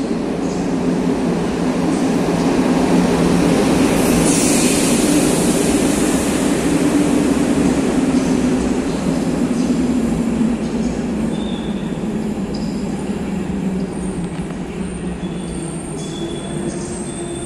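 EP09 electric locomotive and its passenger coaches rolling into an underground station platform and slowing to a stop. The running rumble is loudest a few seconds in, with a brief hiss about four seconds in. It then eases off as thin, high brake and wheel squeals come from the braking coaches.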